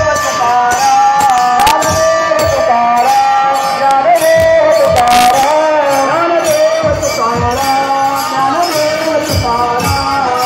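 Warkari bhajan singing, a melodic devotional chant amplified through horn loudspeakers, with small hand cymbals (taal) struck in a steady beat of roughly one clash a second.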